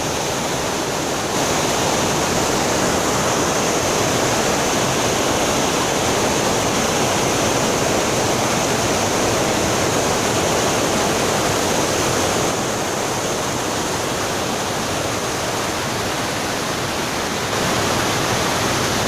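Thoovanam waterfall's heavy flow of water falling, heard as a loud, steady rush. Its loudness steps up or down slightly a few times.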